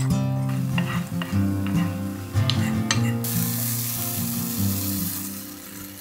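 Shrimp, bacon and diced tomato frying in a pan and stirred with a wooden spatula, the spatula tapping and scraping on the pan. About three seconds in, a loud sizzle comes in suddenly.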